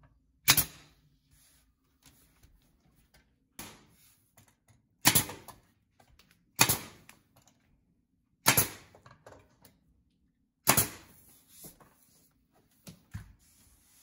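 Pneumatic flooring stapler firing staples into engineered hardwood boards: six sharp shots a few seconds apart, with a couple of fainter knocks near the end.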